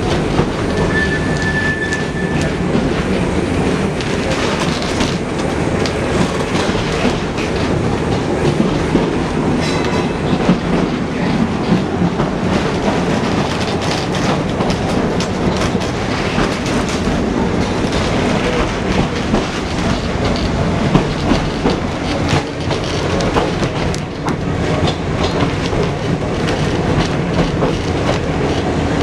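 Heritage electric tram running on its track, heard from on board: a steady rumble of the wheels and running gear, with frequent clicks and rattles. A brief high steady tone sounds near the start.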